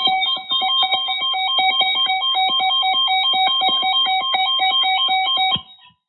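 Emergency alert attention tone: a steady, loud multi-pitch alarm tone that cuts off about six seconds in. It is riddled with crackling clicks and dropouts from a faulty headphone cord.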